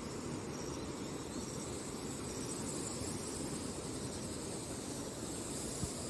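Steady low rushing outdoor noise, with an insect chirping high and short about once a second through the first half.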